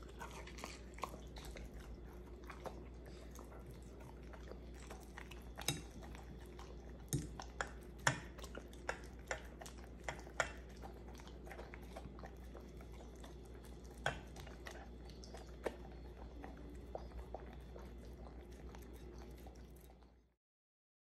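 German shepherd eating soft meatloaf from a plate, chewing and licking with scattered sharp clicks. The sound stops abruptly near the end.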